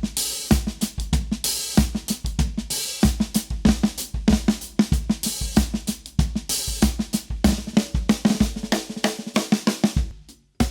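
A drum kit groove played on a Gretsch Swamp Dawg 8x14 snare drum, with bass drum and hi-hat or cymbal strokes. The playing stops briefly just before the end, then starts again.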